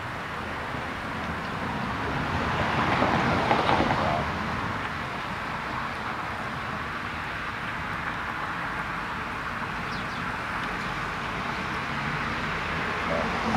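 Road traffic going by: a steady hum of passing cars, with one car passing loudest about three to four seconds in and fading away.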